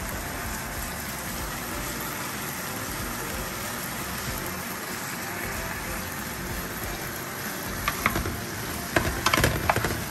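Sliced smoked meat with honey sizzling steadily in a nonstick frying pan. Near the end a spatula stirs the pieces, scraping against the pan several times.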